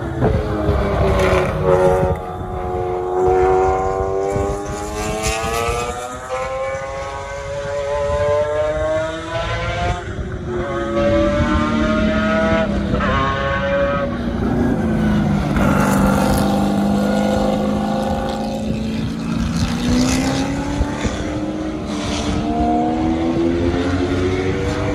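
Race car engines at full throttle, pitch climbing and dropping back with each gear change: first a McLaren F1 GTR's V12 accelerating out of a corner, then race engines lower in pitch that climb again near the end.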